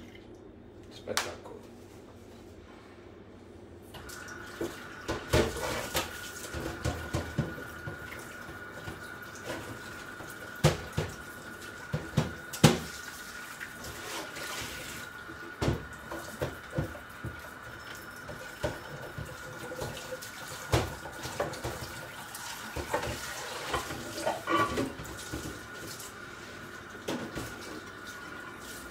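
Kitchen tap running into a sink, turned on about four seconds in, with repeated sharp knocks and clatters of things being handled in the sink.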